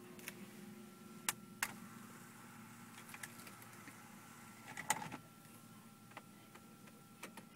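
Sharp plastic clicks from the Nissan 350Z's dashboard controls about a second and a half in. Near five seconds comes a louder knock and clatter as the flip-up storage lid on the centre dash is shut. Under it all runs a faint steady hum.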